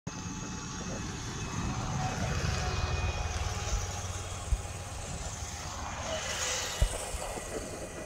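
Steady low rumble and hiss of a vehicle running, with a few single low thumps.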